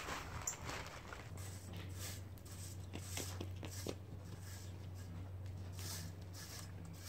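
A rake scraping over the crushed-stone patio base in several irregular strokes, over a steady low hum.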